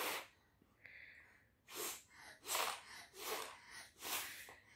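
A toddler blowing short, hard puffs of breath through a plastic drinking straw: about five puffs, under a second apart.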